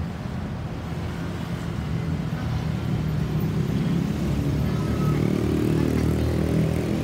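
Heavy road traffic: a steady low rumble of car, bus and motorcycle engines that grows louder from about halfway through.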